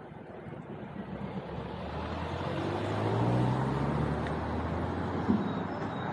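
A vehicle engine running and pulling away, its note rising slightly and growing louder through the first half, over a steady outdoor rumble. A single short knock about five seconds in.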